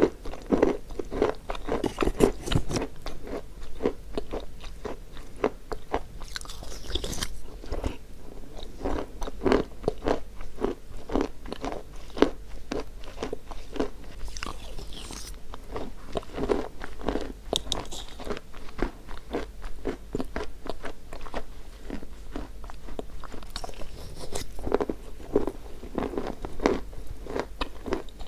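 Close-up biting and chewing of chalk: a dense, irregular run of crisp crunches, with a few brighter, sharper bites every several seconds.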